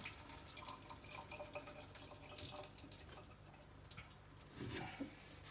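Faint drips and trickles of meat juices falling from a tilted enamel pot into a stainless steel sink as the liquid from the browning pork is poured off.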